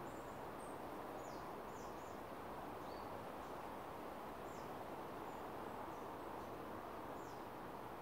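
Woodland ambience: a steady background hiss with small birds giving short, faint, high chirps here and there.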